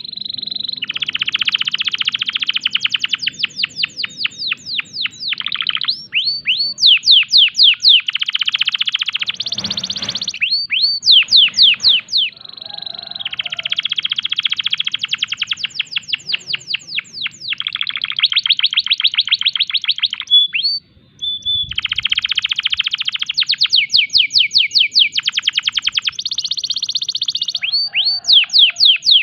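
Domestic canary in breeding condition singing a fast, unbroken song. It changes every second or two between rapid rolling trills and runs of quick downward-sweeping whistled notes, with one brief pause about two-thirds of the way through.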